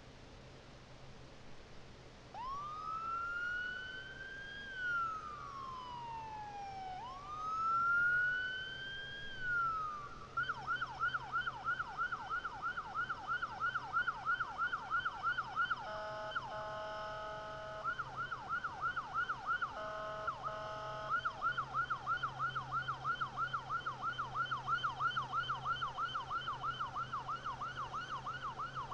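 Fireboat siren: two slow rising-and-falling wails, then a rapid yelp. The yelp breaks off twice for steady horn blasts, the first about two seconds long and the second about one.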